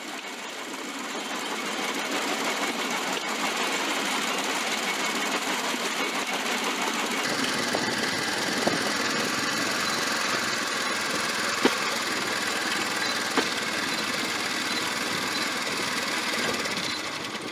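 Bamboo train (norry) under way, its small single-cylinder petrol engine running steadily as it drives the axle by belt, with the clatter of the cart on the rails. About seven seconds in the sound grows fuller and deeper, and a few sharp knocks come through in the second half.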